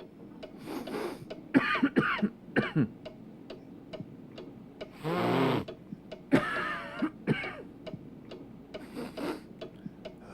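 A person's drawn-out build-up to a sneeze: a series of sharp gasping in-breaths and strained 'aah' sounds spread over several seconds, over a clock ticking about twice a second.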